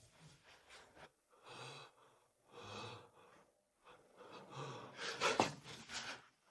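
A person breathing hard with gasps, a few faint breaths spaced about a second apart that grow louder and quicker near the end: labored breathing in distress.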